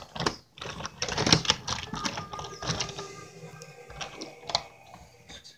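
Wooden toy train and wooden track pieces clicking and knocking irregularly as they are handled and pushed along the track. The clatter is busiest at first and thins out toward the end.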